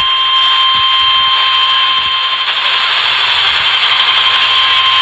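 Emergency alert attention tone: a single steady high tone over radio hiss, sounding the flash flood emergency alert. It stops near the end, leaving only the hiss.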